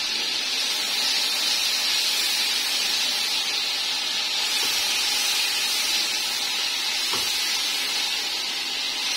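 Onions and ginger-garlic paste sizzling steadily in hot oil in a cooking pot as they are sautéed to cook off the paste's raw smell, with one light tap about seven seconds in.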